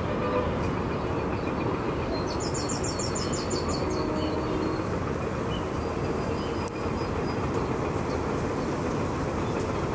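Steady, distant rumble of a taxiing Airbus A350-900's Rolls-Royce Trent XWB engines at low taxi power, heard as an even noise across the airfield.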